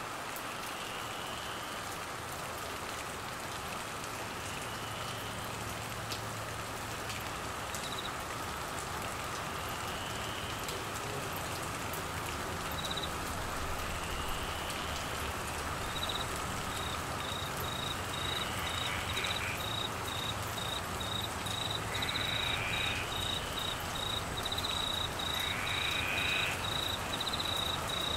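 Heavy monsoon rain falling steadily. About halfway through, a cricket starts chirping in fast, regular pulses and keeps going. Over the rain, a short rising call repeats every few seconds and grows louder toward the end.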